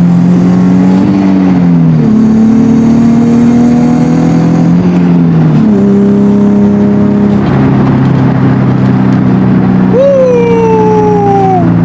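Nissan 370Z's 3.7-litre V6 engine running under acceleration while being driven, its note dropping in pitch at gear changes about two and five and a half seconds in. Near the end a higher tone falls steadily in pitch.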